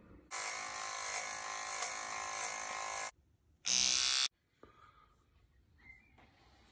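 T-blade electric hair trimmer running with a steady buzz for about three seconds. It stops, then buzzes again briefly and louder for about half a second.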